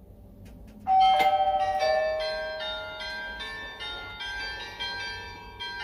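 House doorbell ringing from the video doorbell's button press: a loud chime strike about a second in, then a run of ringing bell-like notes stepping through a tune and slowly fading.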